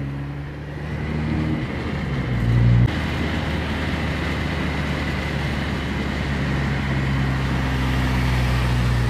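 Car cabin noise while driving: a steady low engine drone with road noise. The sound changes abruptly about three seconds in, then runs on steadily.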